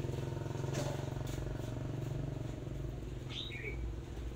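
A small engine running steadily with a fast, even pulse; its tone weakens about three seconds in. A couple of light knocks come around the first second, and a bird chirps briefly near the end.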